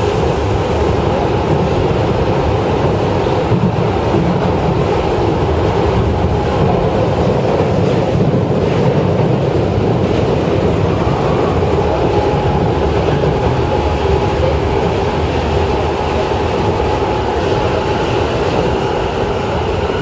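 Osaka Municipal Subway Midosuji Line 21 series train running at speed, heard from inside the car: a steady loud rumble of wheels on rail and running gear, with some rail clatter and a faint steady tone joining about halfway through.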